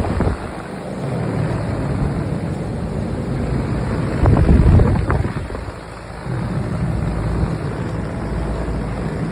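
Outdoor air-conditioner condensing units running: a steady rush of fan noise over a low hum. Wind buffets the microphone about four seconds in.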